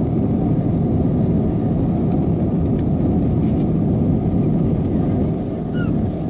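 Steady low rumble of an airliner cabin in flight: engine and airflow noise heard beside a passenger window.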